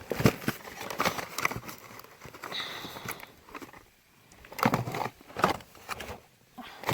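Irregular clicks, knocks and rustling of packaged toiletries and plastic packaging being handled, with a cluster of louder knocks about five seconds in and a brief high squeak near the middle.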